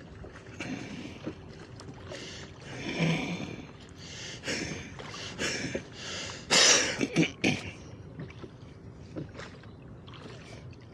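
Water sloshing and slapping against the hull of a small boat: irregular splashes, loudest about two-thirds of the way through.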